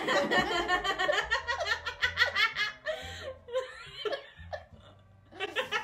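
A woman laughing. There is a long run of quick, loud laughs for the first two and a half seconds, softer laughter after that, and a second short burst near the end.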